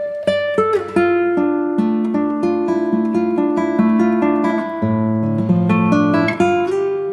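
Background music: a melody of plucked guitar notes with a low bass line.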